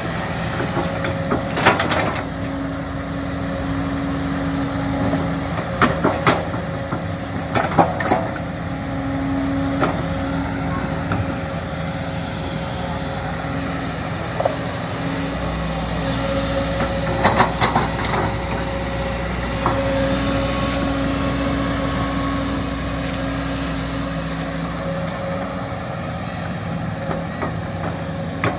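Excavator at work: a steady machine drone, with a higher whine that comes and goes several times as the arm moves, and sharp clanks and knocks scattered through.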